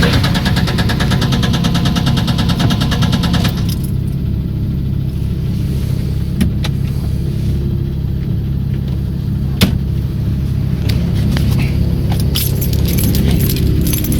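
A 1994 Chrysler LHS's 3.5-litre V6 running with a fast, even metallic clatter: the engine knock and valve noise that the owner is showing. The clatter fades about three and a half seconds in, leaving a lower rhythmic running with a sharp click near ten seconds, and some ticking comes back near the end.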